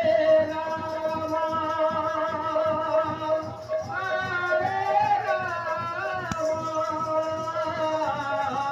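Live kirtan music: a voice singing over a held drone tone and a quick, steady drum beat.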